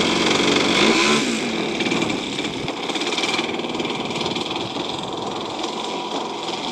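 3W-85 two-stroke gasoline engine of a large RC P-51 Mustang model, fitted with a Keleo exhaust, running as the plane taxis away over grass. Its pitch shifts briefly about a second in, then the engine grows fainter as the plane moves off.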